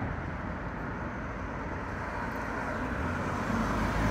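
Street traffic noise: a steady rumble of passing road vehicles, growing louder near the end.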